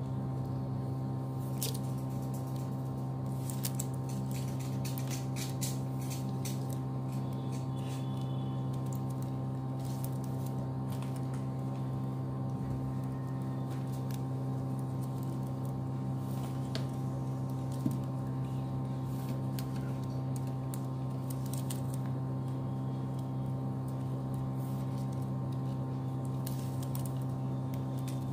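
Steady low hum, likely electrical, with faint scattered clicks and crinkles of plastic craft wire being pulled tight and woven by hand; one slightly sharper click comes about two-thirds of the way through.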